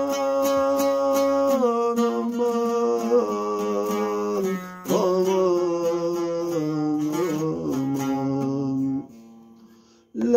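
Bağlama (saz), a long-necked Turkish lute, picked in a steady rhythm, with a man singing long held notes of a Turkish folk-style melody over it. The music dips briefly about four and a half seconds in, then breaks off about nine seconds in and starts again just at the end.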